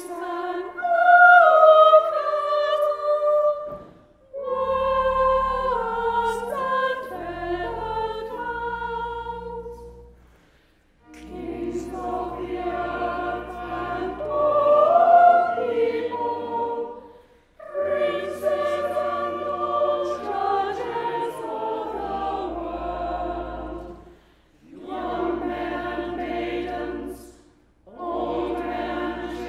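Mixed choir singing with organ accompaniment, in phrases a few seconds long with brief breaks between them.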